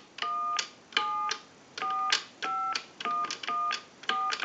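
Touch-tone (DTMF) dialing on a single-slot payphone's keypad: a run of about eight short two-note beeps, about two a second, each starting and ending with a click of the key, as a phone number is dialed out.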